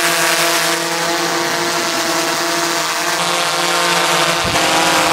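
DJI Phantom 4 Pro quadcopter's propellers giving a steady, high whine, with an abrupt shift in pitch about four and a half seconds in.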